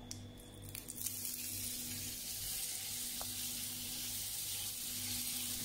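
Butter sizzling as it melts in a hot non-stick frying pan: a steady hiss that builds about a second in, with a few light spatula knocks at the start.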